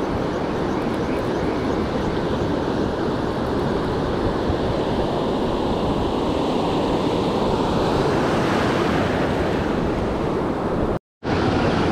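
Surf breaking and washing up the beach, a steady rushing hiss with wind buffeting the microphone. The sound cuts out to silence for a moment near the end.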